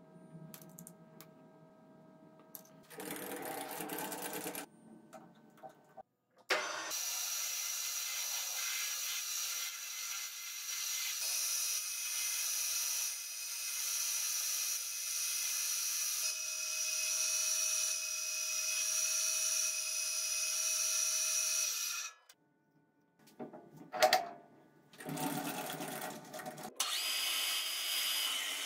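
Metal lathe running, its chuck spinning a workpiece beside the cutting tool: a steady machine sound with a high whine, starting suddenly about six seconds in and stopping about 22 seconds in. Before and after it, knocks and rattles of tools being handled on the lathe.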